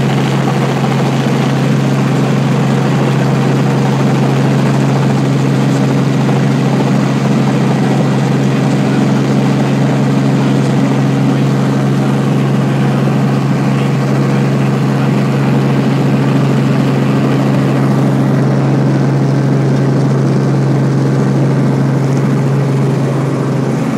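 Helicopter engine and rotors running, heard from inside the cabin: a loud, steady drone with an unchanging low hum.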